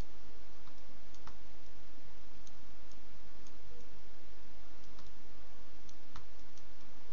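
Computer mouse clicking, a handful of single clicks at irregular intervals, over a steady low hum of background noise.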